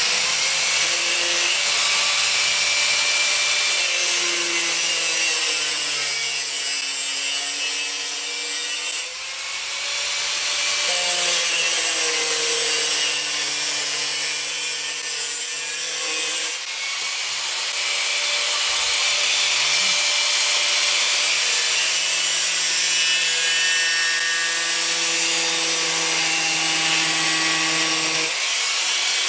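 Handheld angle grinder running with its disc cutting into a flat-screen LCD monitor's screen: a steady harsh grinding hiss over the motor's whine, which sags and recovers in pitch as the disc bites and eases. The noise dips briefly about nine seconds in and again about sixteen seconds in.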